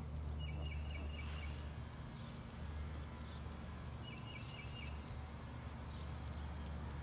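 A steady low hum, with a small bird's quick run of about five high chirps heard twice, about four seconds apart.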